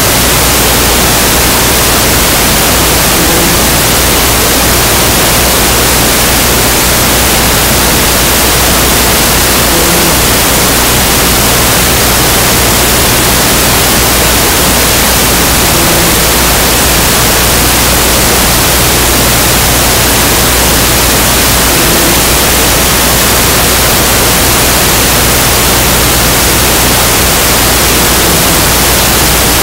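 Loud, steady static hiss, like white noise, filling the whole sound track without a break.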